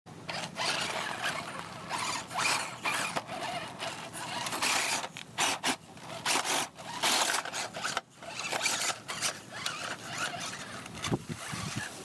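Axial SCX10 Deadbolt 1/10-scale electric RC crawler's motor and gears whirring in short, uneven stop-start bursts as it crawls over snow-dusted rocks.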